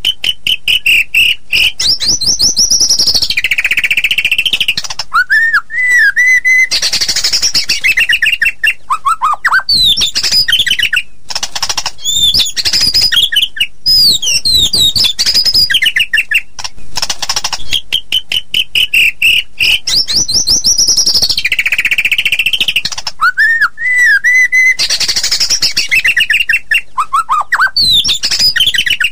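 White-rumped shama (murai batu) singing a fast, varied song of loud whistles, slurred glides, trills and chattering notes with short breaks. It is the fierce kind of song bird keepers play to provoke other shamas into singing. The same sequence of phrases repeats about halfway through.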